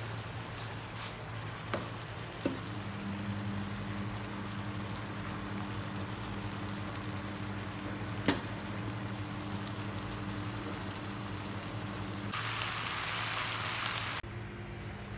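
Vegetables sizzling in a hot frying pan as they are seasoned and stir-fried, with a steady low hum underneath and a few sharp clicks of utensils against the pan. The sizzling grows louder for a couple of seconds near the end.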